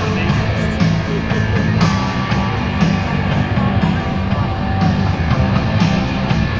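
Rock music with electric guitar and a steady driving beat.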